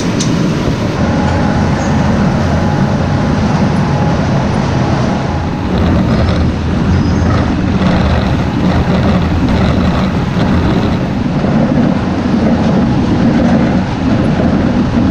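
Better Built potato seed cutter running steadily, a loud low rumble with a dense rattle as seed potatoes pass through it.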